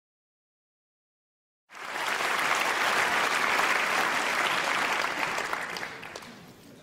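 Audience applauding, starting suddenly after a couple of seconds of silence and dying away toward the end.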